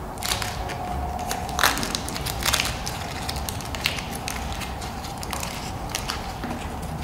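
Paper muffin liner crinkling and tearing as it is peeled away from a baked muffin: a run of irregular crackles, with the loudest rips about a third of the way in. A steady low hum runs underneath.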